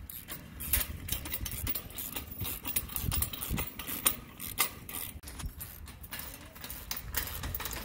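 Irregular metallic clicks and clinks of hardware and a hand tool on the steel mesh frame of an Erickson hitch-mount cargo carrier being bolted together, over a low background rumble.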